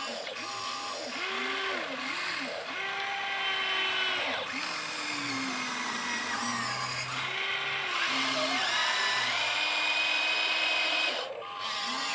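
Huina 1593 RC excavator's electric motors whining as the boom, arm and bucket work. Each whine rises in pitch as a motor starts, holds, then falls as it stops, one after another, with a brief pause near the end.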